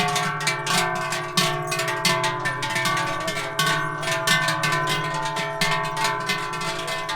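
Folk-style music played on a plucked or struck string instrument, a quick run of many notes.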